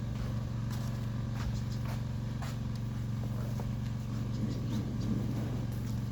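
A steady low hum with scattered light clicks and knocks over it.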